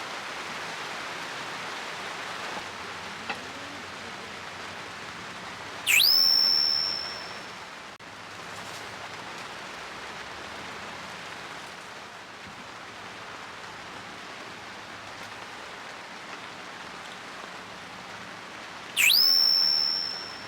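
Steady rain falling. Twice, about thirteen seconds apart, a loud shrill whistle sweeps quickly up in pitch, holds for about a second and fades.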